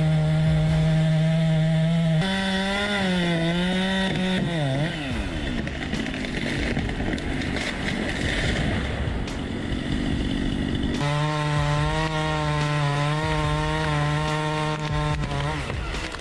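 Two-stroke chainsaw running at high revs, its pitch dipping as it bogs under the cut, then dropping away about five seconds in to a stretch of rough noise. About eleven seconds in it runs at steady high revs again before cutting off near the end.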